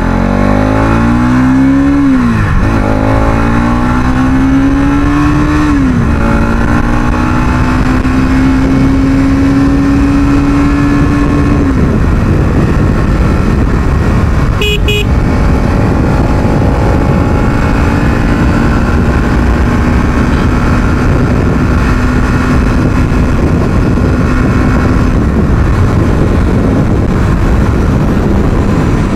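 Bajaj Pulsar NS200 single-cylinder engine accelerating hard through the gears: its pitch climbs and drops at each upshift, about 2, 6 and 12 seconds in, then holds steady at speed until it eases off near the end. A brief high beep sounds about halfway through.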